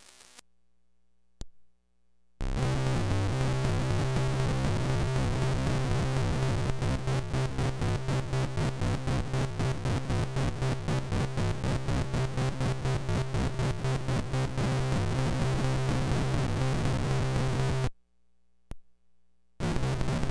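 Hand-built circuit-bent noise guitar pedal driven by an electric guitar, its slow octave setting giving a harsh, synth-like buzzing tone that stutters in a rapid rhythm and shifts in a pseudo-random way. It starts after a brief silence about two seconds in, cuts off suddenly near the end with a click, then starts again.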